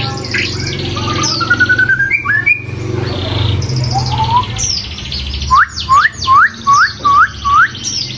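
White-rumped shama singing loudly: a varied song of whistles, glides and rattling trills, then a run of six sharp upward-sweeping whistles in the second half.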